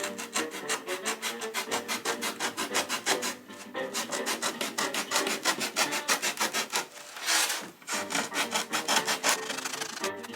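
A hand tool is worked back and forth over a workpiece in fast, even rasping strokes, about seven a second, pausing briefly twice.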